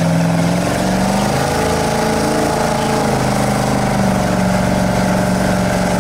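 Carbureted 454 big-block Chevy V8 of a vintage jet boat running under way, with a steady rush of wind and water. The revs rise about a second in and ease back again around three to four seconds in.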